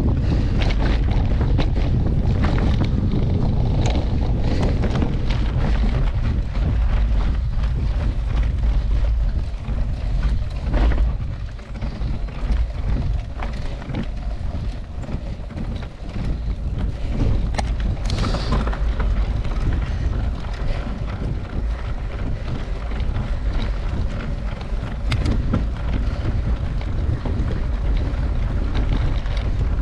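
Wind buffeting the microphone of a camera riding on a mountain bike, with frequent short knocks and rattles from the bike on rough trail.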